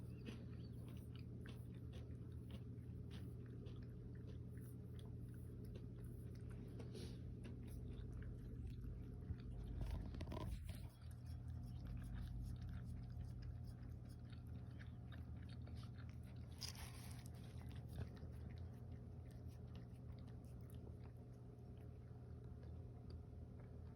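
Close, faint crunchy chewing of food, many small crunches one after another, over a steady low hum.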